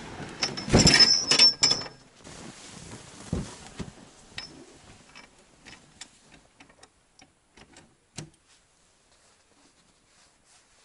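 Handling a sled: a loud clatter with a short high squeak in the first two seconds, then scattered light clicks and knocks that thin out, with one sharper knock about eight seconds in.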